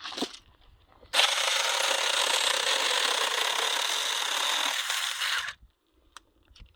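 Saker mini battery-powered electric chainsaw cutting through a dead tree branch, running steadily for about four seconds and then stopping abruptly.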